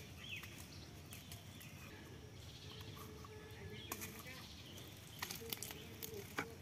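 Faint outdoor quiet with a few light clicks and rustles from a woven bamboo fish trap being set down and handled on dry ground, about four seconds in and again near the end.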